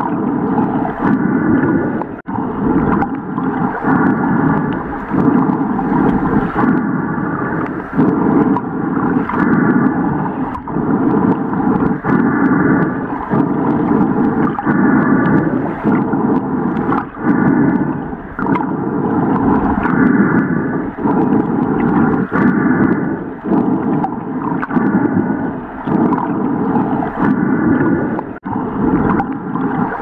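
Underwater ambience sound effect: a steady low rumble and gurgling, with faint pitched tones coming and going every second or two.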